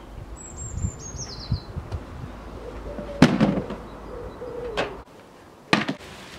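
A small bird's quick descending trill near the start. Then knocks and bumps from things being carried and put down, the loudest a sharp knock about three seconds in and another sharp tap near the end.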